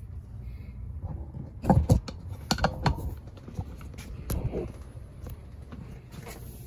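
A few sharp knocks and clatters, the loudest about two seconds in, over a steady low hum.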